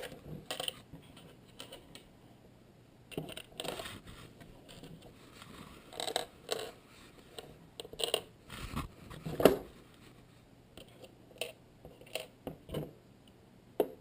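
Small screws clinking and tapping as they are dropped into the plastic case of a radio-control transmitter and handled: a scatter of light clicks in small clusters.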